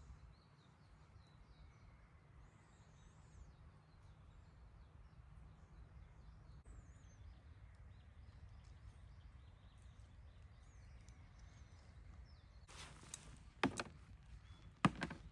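Quiet forest ambience with a low steady rumble and faint, thin bird chirps and warbles. About three seconds from the end come several loud, sharp knocks or clatters.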